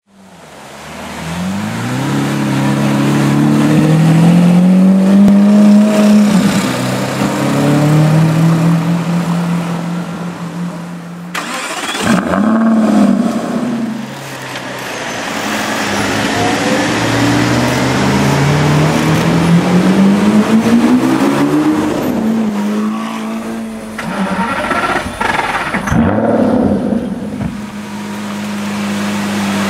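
Lamborghini Aventador's 6.5-litre V12 engine revving and accelerating, its pitch climbing and falling several times, with abrupt breaks between takes. It settles to a steady idle near the end.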